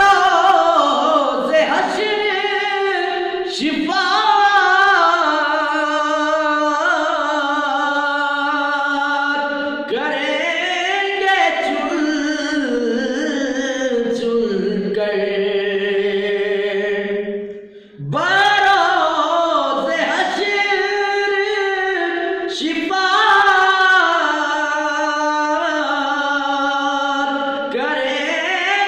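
A man singing solo without accompaniment, in long held phrases with ornamented bends in pitch. He pauses briefly for breath about 18 seconds in, then starts a new phrase.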